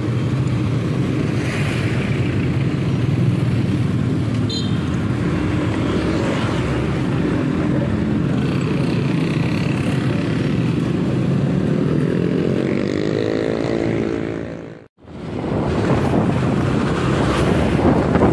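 Motorcycle engine running while riding on the road, with its pitch rising as it speeds up about three-quarters of the way through. The sound drops out for an instant, then continues with wind rushing over the microphone.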